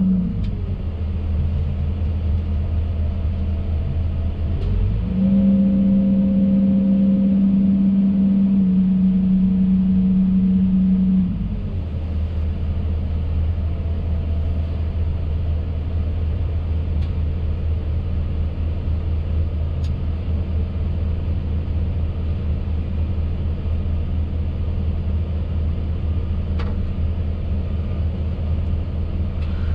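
Hidromek 220 excavator's diesel engine running, heard from inside the cab. About five seconds in it rises to a higher, louder note, then drops back to a steady lower running note about eleven seconds in.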